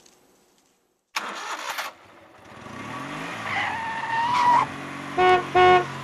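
A car engine starting and revving, with a car horn honking twice near the end.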